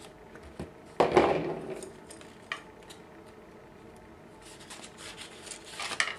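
Handling noises as a paper pinwheel is worked onto a wooden skewer: a hard knock with a short ring about a second in, a small click, then rustling near the end.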